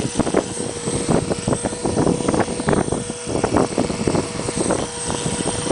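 Electric RC helicopter (Align T-Rex 400) flying, its motor and rotor giving a steady whine over uneven gusts of wind on the microphone.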